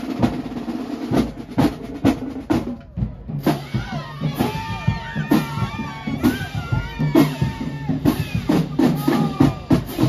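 Marching band playing: a drumline beat, with held horn notes and low brass coming in about three seconds in over the steady drum strikes.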